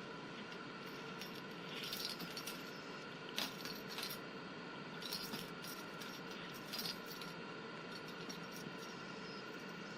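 Homemade ring-shaped cat toy jangling and rattling in several short bursts as a Jack Russell terrier noses and paws at it, the sharpest clatter about three and a half seconds in.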